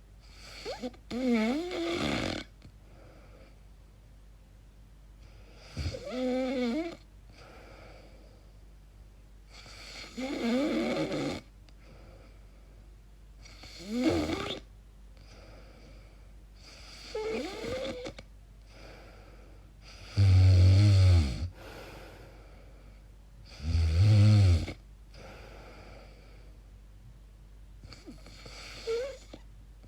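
A woman snoring in her sleep: a strange, noisy snore with a wavering pitch on each breath, about every three to four seconds. The two snores about two-thirds of the way through are the loudest and deepest. She herself wonders whether the noises are a sign of sleep apnea.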